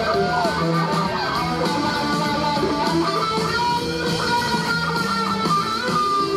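Live blues-rock band playing, led by two electric guitars playing lead lines with bent and gliding notes over the drums.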